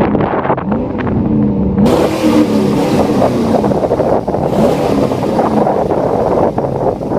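Cadillac Escalade EXT's V8 revving hard as the truck drives past, its engine pitch rising and then falling, with a rush of hiss about two seconds in as it comes closest. Heavy wind noise on the microphone runs underneath.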